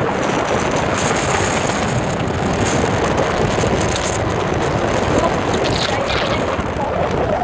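Steady wind rushing over the microphone of a moving motorbike, mixed with tyre hiss from the wet road.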